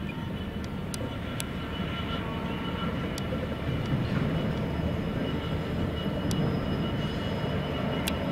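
Class 66 diesel-electric locomotive, its EMD two-stroke V12 running steadily as it passes hauling a container train, growing louder from about two seconds in. A few sharp clicks come through the steady drone.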